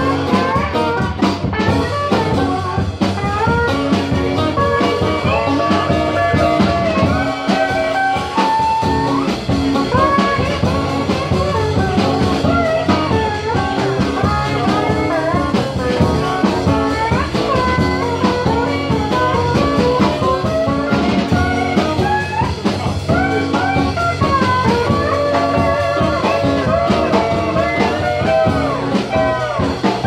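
Live acoustic band music: strummed acoustic guitars and an Ibanez PCBE-12 acoustic bass played through a Fender Rumble 100 bass amp, with a voice singing.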